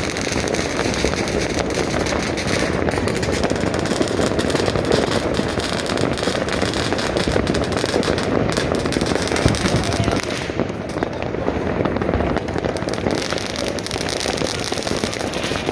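Continuous crackle and bangs of many fireworks and firecrackers going off at once across the city, a dense din with no pause.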